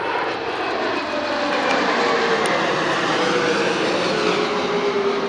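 Boeing 787 Dreamliner's twin turbofan jet engines passing overhead in a low flyby: a loud rushing jet noise that swells to its peak mid-way and begins to ease, with a faint whine sliding down in pitch as the airliner moves away.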